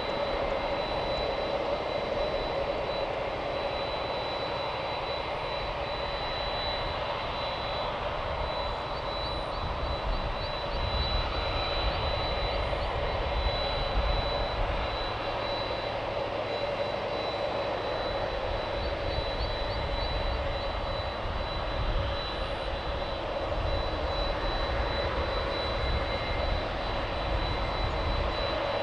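Boeing 767 jet engines idling after pushback: a steady high whine over a broad rushing hum and low rumble.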